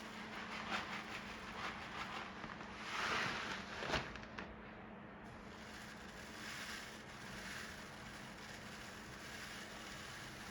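Small fan in a 3D-printed air purifier running, a steady rush of air with a faint low hum, and a single sharp click about four seconds in.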